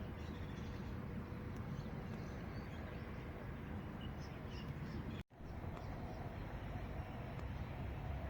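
Outdoor park ambience: a steady low rumble with faint, scattered bird chirps. The sound cuts out for a moment about five seconds in.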